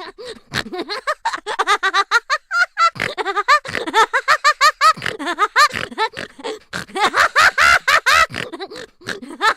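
Cartoon vocal sound effect: a fast run of short, high, squeaky syllables, each swooping up and down in pitch, several a second, in a giggling or squealing chatter.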